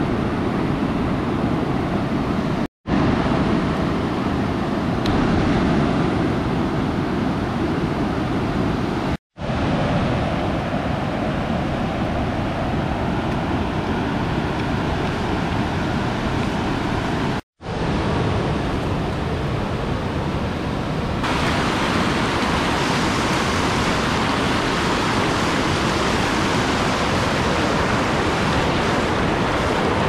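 Steady rush of a rain-swollen stream and waterfall, a continuous noise without let-up, broken by three brief silent dropouts. From about two-thirds of the way in it turns brighter and hissier, as from water pouring over rock close by.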